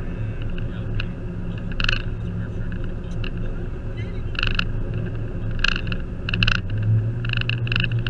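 Steady engine and road drone inside a moving SUV's cabin, with several short, high squeaks at irregular intervals, more of them in the second half.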